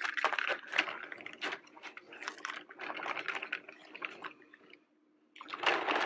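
Hard plastic toy trucks handled and moved across a tabletop: a run of small clicks, taps and rattles, with a brief dropout about five seconds in followed by a louder burst of rustling.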